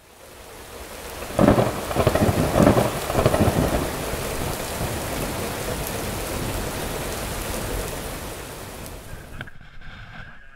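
Steady rain with thunder rumbling and crackling loudly a second or so in, the rain then fading out near the end.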